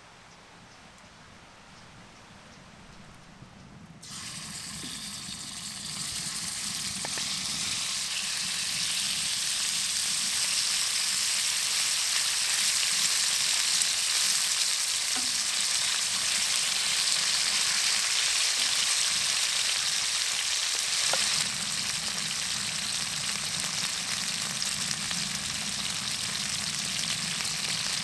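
Food sizzling in a hot pan. The sizzle starts suddenly about four seconds in, grows louder over the next few seconds, holds steady, and settles a little quieter near the end.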